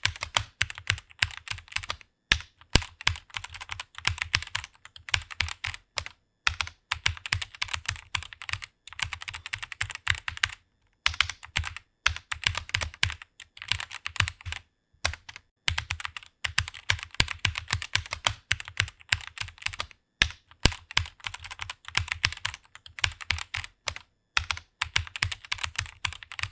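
Fast typing on a computer keyboard: rapid keystrokes in runs of a few seconds, broken by brief pauses.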